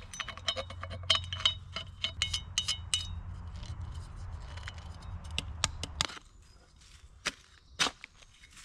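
A small metal shovel digging a hole in woodland ground: rapid, sharp metallic clinks and scrapes of the blade in the soil, thinning to a few scattered knocks after about six seconds.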